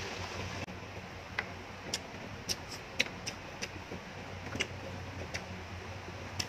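Close-miked chewing of a mouthful of noodles: a dozen or so short, sharp wet mouth clicks at irregular intervals over a low steady hum.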